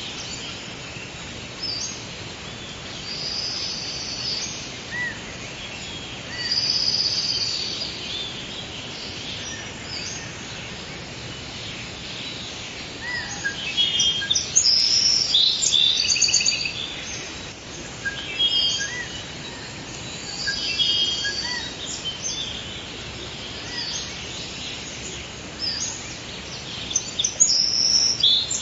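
Forest birds chirping and trilling, several short calls overlapping, busiest in the middle and near the end, over a steady background hiss.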